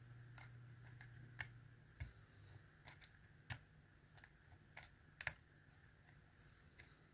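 Dimple pick working the pins of a Mul-T-Lock Interactive euro cylinder: faint, irregular metallic clicks and ticks, about a dozen of them, the loudest a close pair about five seconds in.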